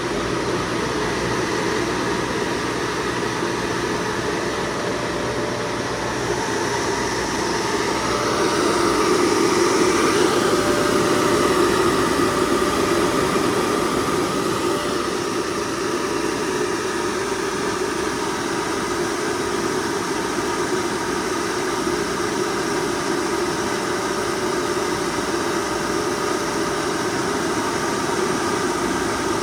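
FMC M10000 air-conditioning unit running: a steady mechanical hum with rushing air. It grows louder about ten seconds in, then settles back to a steady level.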